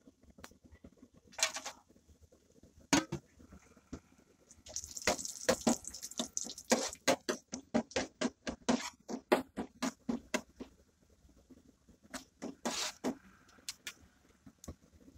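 Sliced almonds, cashews and pistachios frying with whole spices in hot oil in a pan: a faint sizzle, stronger about a third of the way in when the nuts go in. A metal spoon stirs them, clicking and scraping against the pan several times a second for about six seconds, with a few more clicks near the end.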